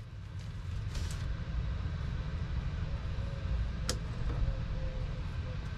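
Steady low machine rumble, with a single sharp click about four seconds in as a plastic food tray is set down on the counter.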